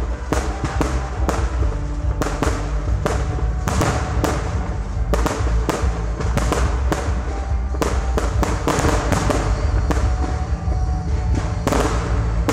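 Fireworks going off in quick succession, about two to three sharp bangs and crackles a second, thinning out briefly near the end. Music with a heavy bass plays under them.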